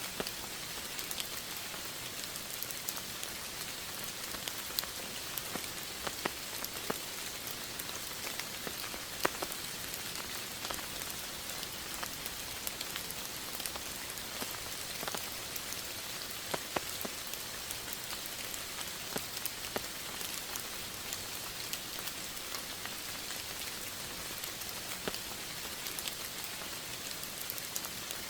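Steady rain falling, an even hiss with many distinct drops tapping close by.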